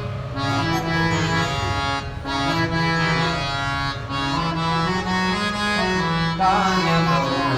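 Harmonium playing the melody of a Marathi gavlan in an instrumental interlude between sung lines, sustained reedy notes stepping from pitch to pitch.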